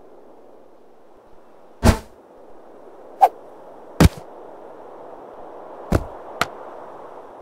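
Martial-arts fight sound effects: five sharp hit and strike sounds, irregularly spaced about half a second to two seconds apart, over a steady background hiss.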